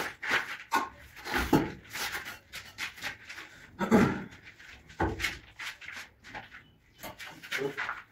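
Stone slabs and bricks being shifted and set in place: irregular knocks and scrapes of stone against stone and concrete, the loudest thud about four seconds in.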